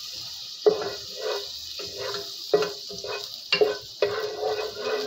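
Butter sizzling as it melts in a metal pot, a steady hiss, with a wooden spoon scraping and knocking across the pot bottom in strokes about once a second.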